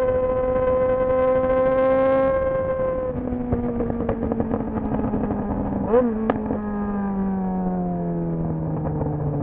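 Yamaha XJ6 motorcycle's inline-four engine held at steady high revs for about three seconds, then dropping to a lower note that slowly falls away as the revs come down, with a short throttle blip about six seconds in.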